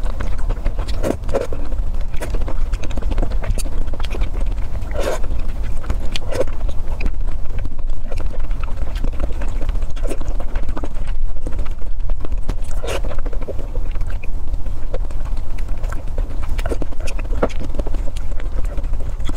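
Close-miked eating sounds: wet chewing, lip smacks and irregular clicky mouth noises from a person eating soft food in broth with chopsticks, over a steady low hum.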